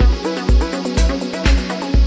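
Electronic background music with a steady kick-drum beat, about two beats a second, under a melodic line.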